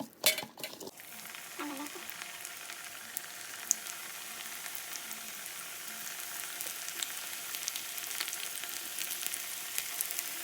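Ullivada (onion fritters) deep-frying in hot oil: a steady sizzle with many small crackles. A few loud sharp sounds come in the first second.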